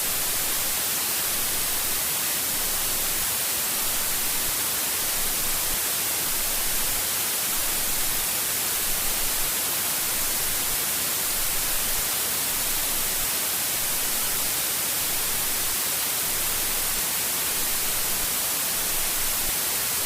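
White noise static, a steady hiss like radio or TV interference, strongest in the high frequencies and unchanging in level.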